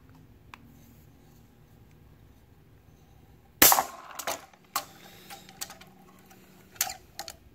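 18 lb Sunline Xplasma Asegai braided fishing line snapping under about 25 lb of pull during a breaking-strength test: a single sharp crack about three and a half seconds in. It is followed by a scatter of smaller clicks and knocks as the digital hanging scale and its hook swing and are handled.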